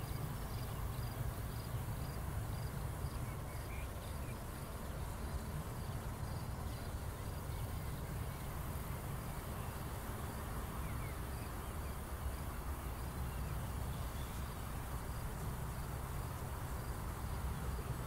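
Outdoor ambience of insects chirping, a faint high pulse repeating about two or three times a second, over a steady low rumble.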